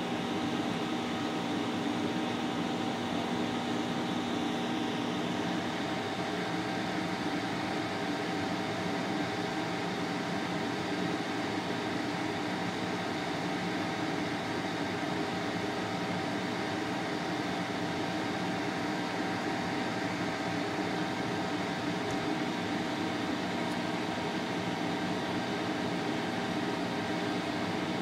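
Steady mechanical hum with a constant pitched tone running underneath, unchanging throughout.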